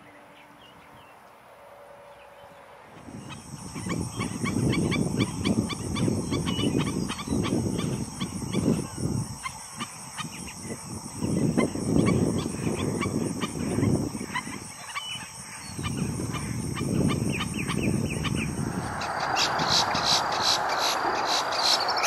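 Black-necked stilts giving a long run of short, sharp yipping calls, starting about three seconds in, over a gusty low rumble and a steady high whine.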